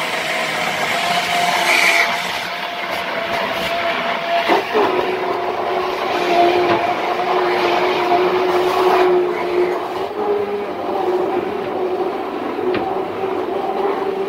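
Electric stick hand blender running in a plastic cup, puréeing onions with water; a steady motor whine whose pitch drops a little under five seconds in.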